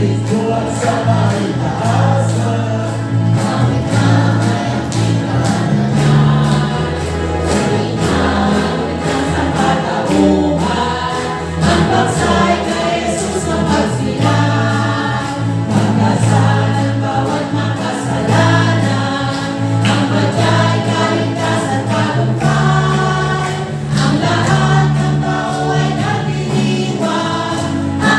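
A choir singing a Christian song with instrumental accompaniment, a steady bass line and a regular beat.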